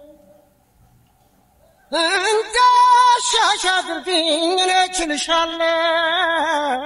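A single voice singing, holding long notes, which comes in about two seconds in after a near-silent start.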